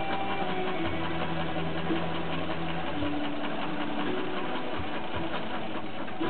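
Vintage Naumann sewing machine running steadily, stitching a seam.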